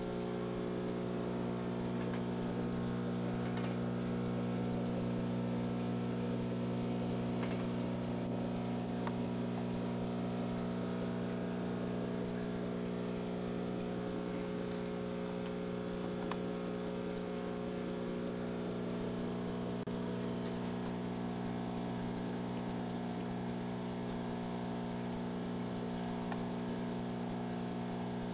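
Steady low hum under a light, continuous patter of bubbling water from an aquarium's air-driven box filter.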